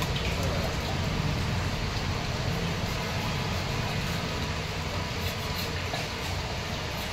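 Steady low background rumble, with a few faint scraping clicks near the end from a curved knife scaling a snakehead fish on a wooden chopping block.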